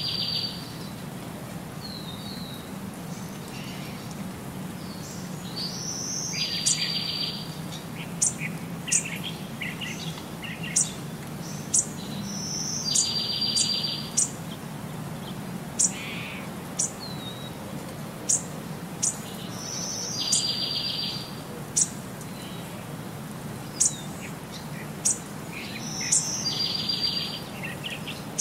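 Birdsong: a high steady whistle that runs into a buzzy trill, repeating about every seven seconds, with short sharp chirps in between, over a steady low hum.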